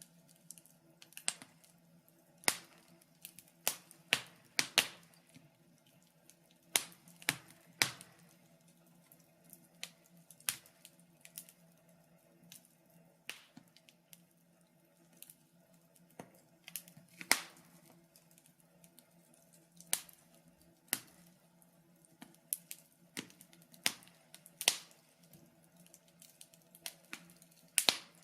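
Wood fire crackling in a fire pit: irregular sharp pops and snaps, some much louder than others, over a faint steady low hum.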